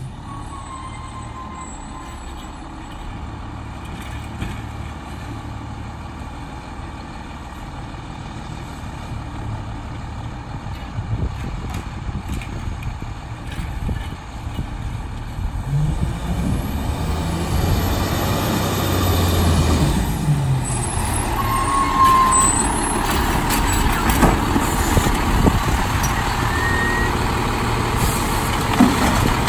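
Autocar Autoreach automated side-loader garbage truck working its way closer, its diesel engine running with brief revs as it powers the hydraulic arm, plus air-brake hiss at its stops. It grows louder over the second half as the truck pulls up and the arm lifts a cart.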